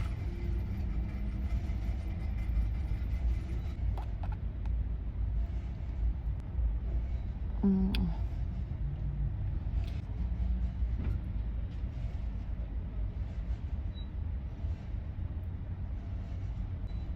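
Steady low vehicle rumble heard inside a car cabin, with a few faint clicks and a short knock about eight seconds in.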